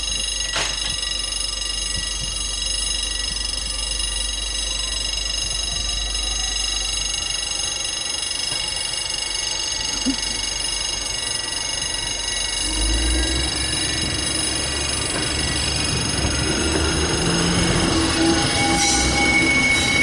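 SNCF Y 8000 diesel shunting locomotive moving slowly over the station tracks, its wheels squealing with a steady high ringing. Its engine rumble grows louder from about two-thirds of the way in as it comes closer.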